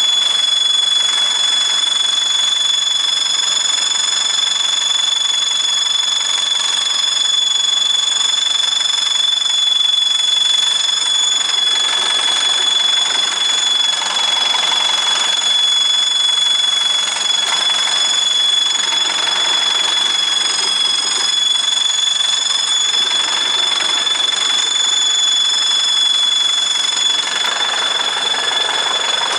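Vehicle exhaust brake giving off a steady high-pitched whistle with a few higher overtones over a rushing hiss: the abnormal exhaust-brake noise whose cause is being tracked down.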